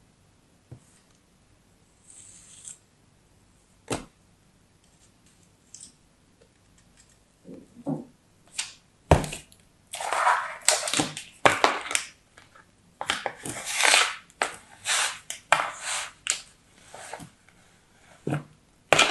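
Kinetic sand being cut with a pointed tool and crumbled by hand in a plastic tray. There are a few soft crunches at first, a thud about nine seconds in as a lump drops into the tray, then several seconds of dense crunching and scraping.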